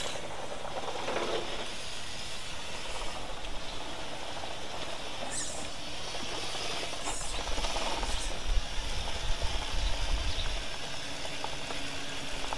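A 1/8-scale Mad Torque RC rock crawler's motor and gears whirring steadily as it drives. A low rumble comes in about halfway through.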